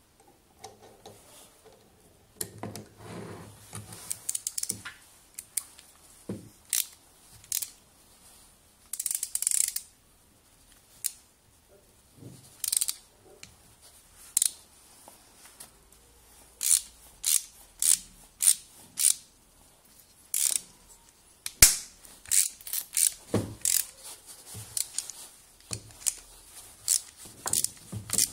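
Metal clicking, tapping and scraping as a jaw-type bearing puller is handled and its threaded screw turned by hand on a small motor armature. The clicks are sharp and irregular, coming in quick clusters.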